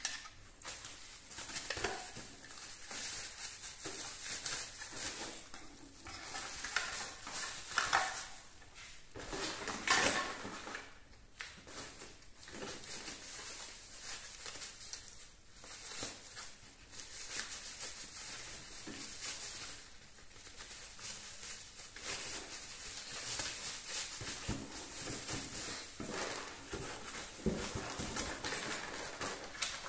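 Hands handling unboxed parts and packaging: hard plastic dashboard trim pieces clacking and knocking against each other and the box, with crinkling plastic wrap and cardboard being moved, and a few louder knocks.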